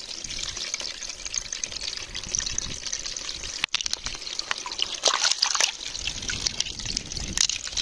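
Shallow seawater trickling and splashing among rocks, with small knocks and clicks scattered through it and brief louder splashes about five seconds in and again near the end.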